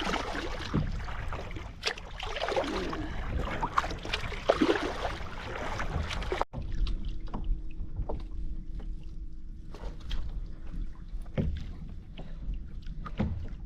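Kayak paddle strokes dipping and splashing in lake water. About halfway through the sound cuts abruptly and goes on quieter, with scattered drips and small splashes.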